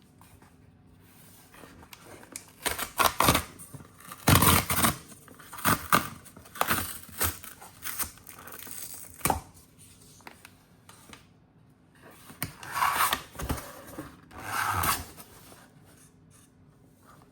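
Packaging of a new MacBook Air box being torn open and handled: a run of short tearing and rustling strokes, loudest about four seconds in, then two longer tears near the end.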